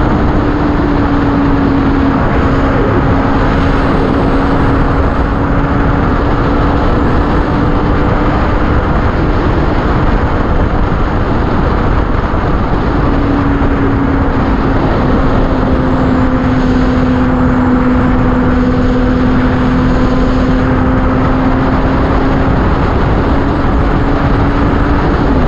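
Yamaha FZ6 motorcycle's inline-four engine cruising at steady highway speed, a steady engine note under heavy wind rush on the microphone. The note fades briefly a little before halfway and comes back slightly higher, then eases down.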